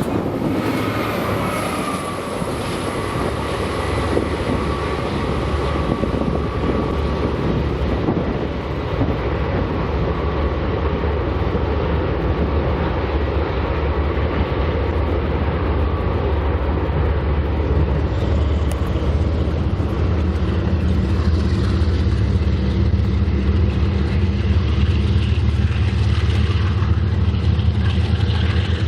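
BNSF freight train rolling past with a steady rumble of cars on the rails. A faint high squeal over the first few seconds sinks slightly in pitch and fades, and a low drone grows stronger over the last third.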